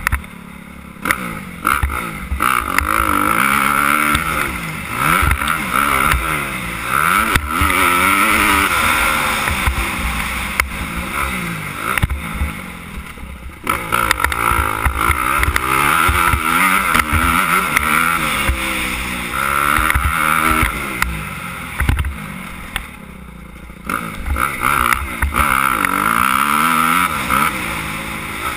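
Suzuki 250 motocross bike engine heard close up while riding a dirt track, its pitch climbing and falling over and over as the rider opens and closes the throttle and shifts. It drops off briefly twice, about twelve seconds in and again about ten seconds later, with low knocks from the bike over bumps.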